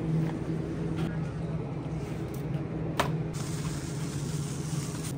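Supermarket background sound: a shopping cart being pushed along with a steady low hum, faint voices and a single sharp click about three seconds in.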